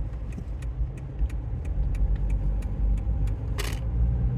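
A car heard from inside the cabin: a steady low rumble of engine and road, with sharp ticks about three times a second and a short hiss about three and a half seconds in.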